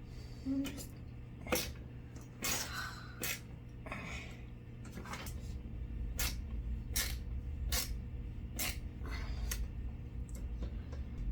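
Light clicks and knocks of furniture parts and hardware being handled during flat-pack assembly, spaced roughly a second apart, with a brief rustling scrape about two and a half seconds in.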